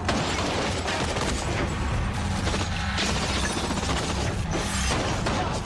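Rapid gunfire in a continuous string of shots, with crashing impacts, over a tense action-film music score.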